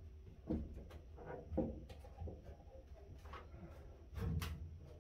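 Sheet-metal outer cover of a microwave oven being lifted off its chassis: a few soft knocks and light handling clatter, the strongest about four seconds in.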